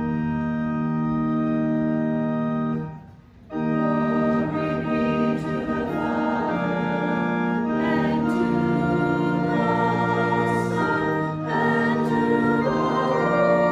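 Church organ playing sustained chords. The first chord is held, then breaks off about three seconds in, and the playing picks up again with a series of changing chords.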